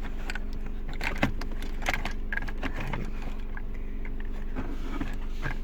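Steady hum of the car running in its cabin, with scattered small clicks and taps from the plastic dash vent-control parts being handled.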